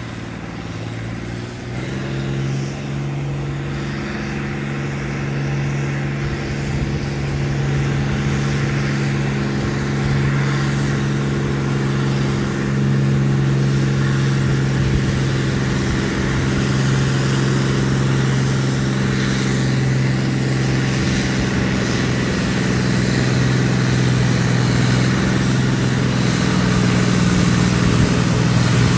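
A John Deere farm tractor's diesel engine pulls hard under load, dragging a weight-transfer sled. Its steady drone firms up about two seconds in and grows steadily louder as the tractor comes closer.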